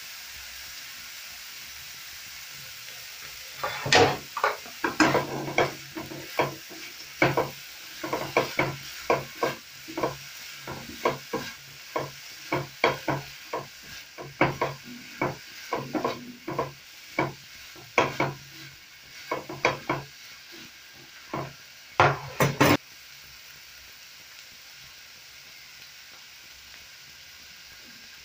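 Chicken and vegetable stir-fry sizzling in a frying pan. A few seconds in, a spatula starts stirring and tossing the food in quick scraping strokes, about two a second, ending in a last fast flurry, after which only the steady sizzle remains.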